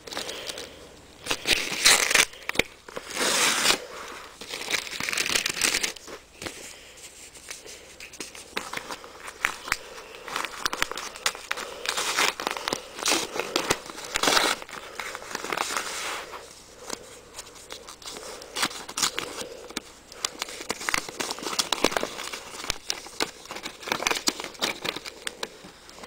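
Paper envelope being torn open and handled: irregular crinkling and tearing of paper, loudest in the first several seconds.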